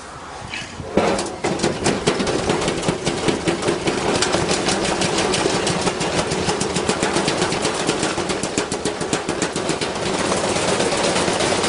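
Front-loading washing machine spinning with a heavy object loose in its drum, which bangs around inside in a rapid, continuous clatter starting about a second in.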